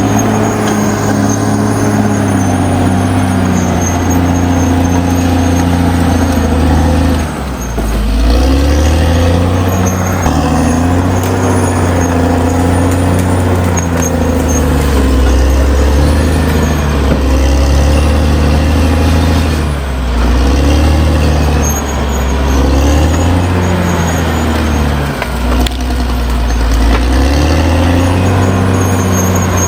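Caterpillar D6R XL bulldozer's diesel engine running hard under load, its pitch shifting up and down as the revs change, with brief easings about a third and two thirds of the way through.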